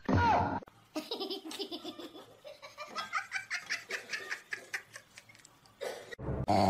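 Laughter in quick, repeated bursts, climbing in pitch around the middle. It is opened by a short, loud sound whose pitch falls.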